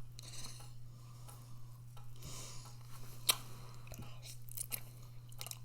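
A person chewing food close to the microphone, with small crunches and mouth sounds and one sharp click a little past halfway, over a steady low hum.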